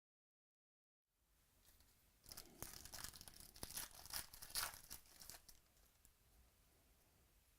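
A foil trading-card pack being torn open, its wrapper crackling and crinkling for about three seconds, starting a couple of seconds in.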